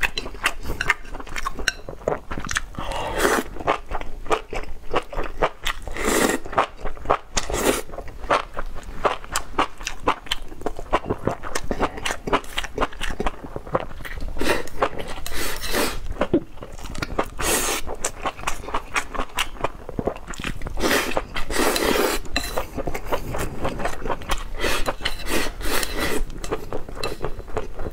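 Close-miked eating: chopsticks scraping and clicking against a ceramic bowl as mouthfuls of rice and lamb are shovelled in, with dense wet chewing and smacking clicks, and several longer noisy sucking sounds.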